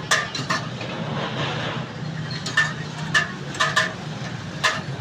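Steel ladle and steel plates clinking against a large stainless-steel cooking pot as chickpea curry is served: several sharp, ringing metallic clinks, bunched about a second apart near the middle and end, over a steady street hum.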